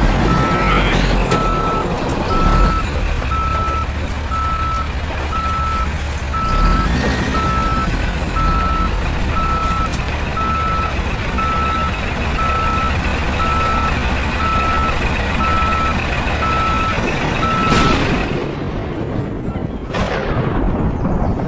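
Vehicle reversing alarm beeping steadily, about three beeps every two seconds, over a low engine rumble. Near the end the beeping cuts off and a brief swish follows.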